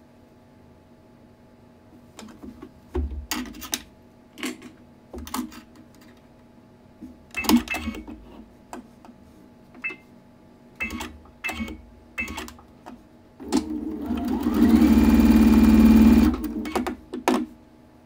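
Computerized sewing machine stitching a short patchwork seam joining two half-square triangles: a run of about three seconds near the end that builds up and then runs steadily before stopping abruptly. Before it come scattered clicks and taps as the fabric is positioned under the presser foot.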